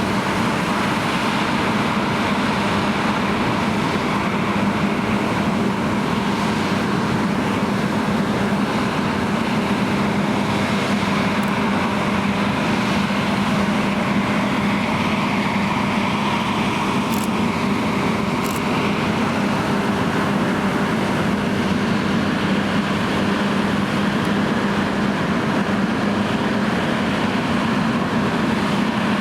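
John Deere X9 1100 combine harvester running steadily as it harvests oilseed rape: a constant drone of engine and machinery with a steady low hum. Two faint short ticks come about halfway through.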